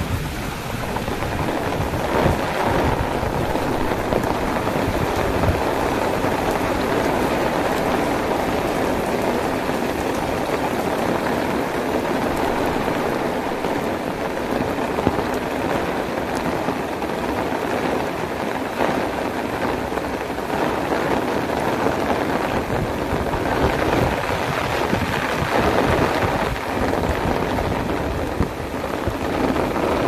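Heavy rain pouring down steadily.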